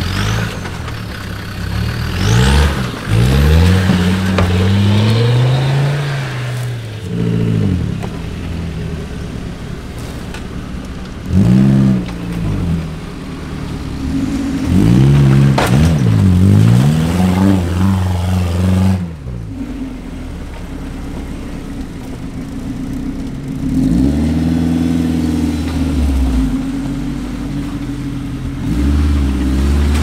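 Off-road 4x4's engine revving up and dropping back in repeated surges, with steadier running at a lower pitch between the surges.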